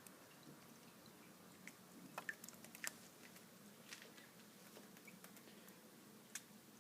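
Faint scattered small splashes and clicks from a budgie bathing in the water of a fish tank, a quick cluster about two seconds in and single ones later, over a low steady hum.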